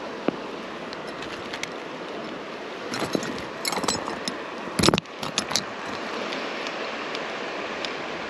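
Creek water running steadily under the handling of a small trout in a landing net: metal clicks and clinks of fishing pliers from about three seconds in, with a loud brushing thump around the middle.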